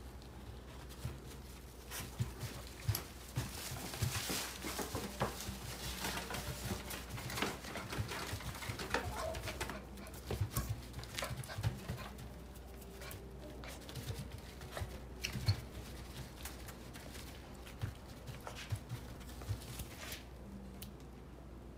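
Shiba Inu puppy moving about, with frequent light, irregular clicks and taps, such as claws and paws on the floor.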